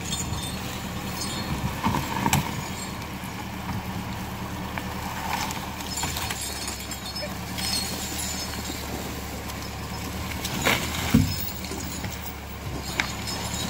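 Forestry tractor's engine running steadily under load while its winch drags a bunch of logs on a cable and chain through the snow. A few sharp knocks come from the logs bumping and shifting, one a couple of seconds in and the loudest near the end.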